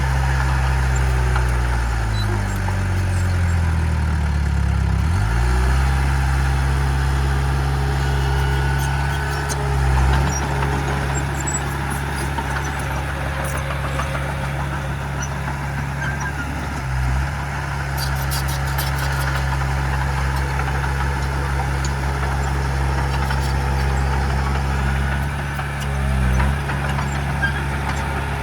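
Heavy diesel engine of earthmoving equipment running steadily. Its pitch slides down a couple of seconds in, and the engine speed shifts briefly a few more times.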